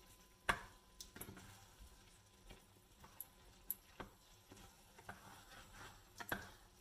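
Faint, irregular clicks and taps of a spoon against the pan while risotto is stirred and checked, about eight in all, the loudest about half a second in.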